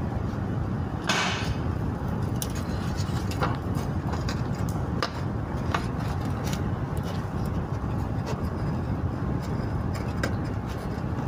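Chipsi mayai frying in a pan on a gas stove: a steady low rumble with scattered light crackles and pops, and a short hiss about a second in.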